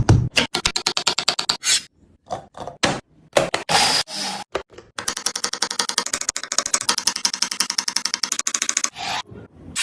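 Scraping or rubbing strokes on wood: a few irregular strokes, then a rapid, even run of about ten strokes a second from about halfway through.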